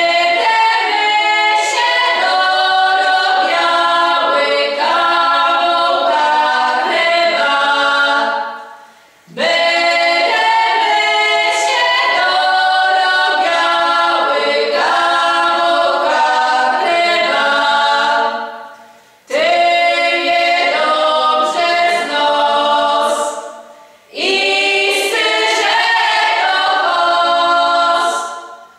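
Six women of a Polish regional folk singing group singing unaccompanied together, in four long phrases, each tailing off into a short breath pause before the next begins.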